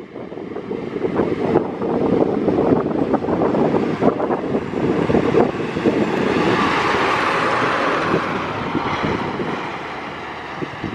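Fire truck driving past, its engine and road noise building and then fading away, with wind buffeting the microphone.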